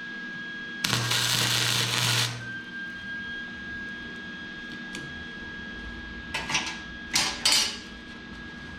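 A handheld power tool runs once for about a second and a half near the start. A few short metal clanks follow near the end.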